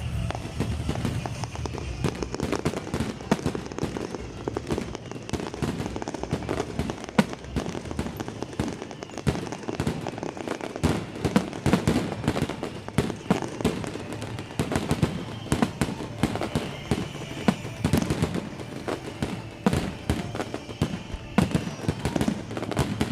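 Aerial fireworks display: a dense, irregular string of bangs and crackling bursts that goes on without a break.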